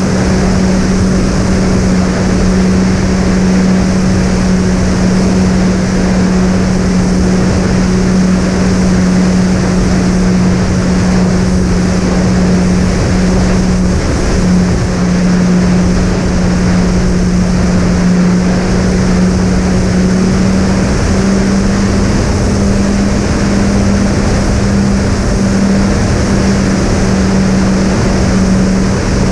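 Twin brushless motors and three-blade propellers of a fixed-wing model plane in cruise, a steady even hum with wind rush from the airflow over the airframe.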